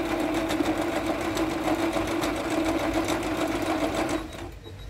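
Jaguar CD-2205MP computerized sewing machine stitching a decorative pattern at a slowed speed setting: a steady motor hum with rapid, even needle ticks, stopping about four seconds in as the pattern finishes.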